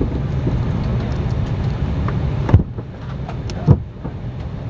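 Steady low rumble and hiss of an Embraer 190's cabin at the gate. Two sharp thumps come about two and a half and three and a half seconds in, and the hiss drops away between them.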